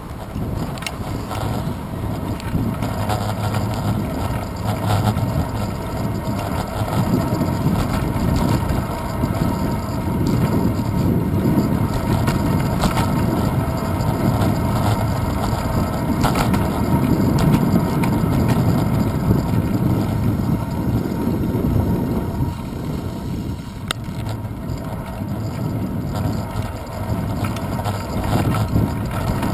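Wind rumble and road vibration picked up by a handlebar-mounted action camera on a moving bicycle, a steady low rumble with a few brief rattles.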